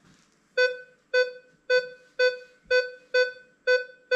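Minelab Equinox 800 metal detector sounding its target tone as an 18-karat gold ring is swept past the coil: about eight short, identical mid-pitched beeps, roughly two a second, starting about half a second in, each fading quickly. Each beep is the detector signalling the gold ring, which it reads as target ID 13–14.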